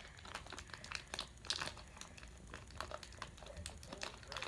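Faint crinkling of plastic packaging being handled, with scattered small clicks and crackles throughout.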